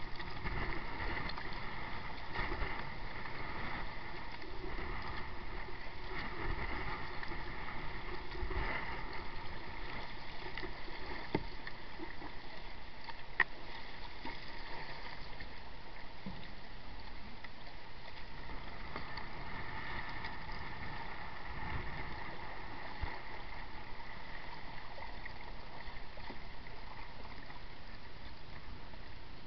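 Water washing and sloshing against a kayak's hull as it is paddled along, a steady wash with one sharp click about halfway through.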